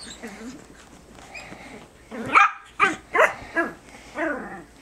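Biewer terrier puppies at tug-of-war play: quiet at first, then about five sharp, high yapping barks in quick succession from about two seconds in.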